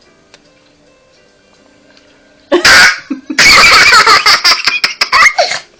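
Faint background music, then about halfway through a loud, sudden vocal burst followed by a couple of seconds of loud voice sounds that break into short pulses near the end.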